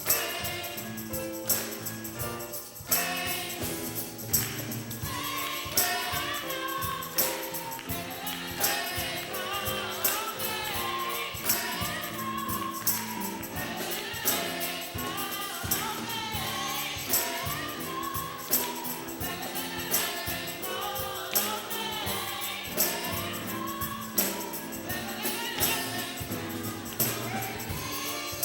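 Gospel music with a choir singing over a band, a tambourine or other percussion striking on a steady beat.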